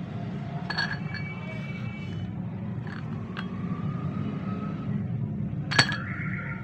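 Light metallic clinks with a brief ring as the old OPC drum, a thin aluminium tube, is handled and knocks against the plastic toner cartridge and the tabletop: one about a second in, a few faint ticks midway, and a sharper, louder clink near the end as the drum is set down. A steady low hum runs underneath.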